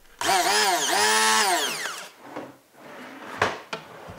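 Handheld immersion blender motor run in two short pulses, its whine rising as it spins up and falling as it winds down. Then a softer low noise, with a single knock about three seconds in.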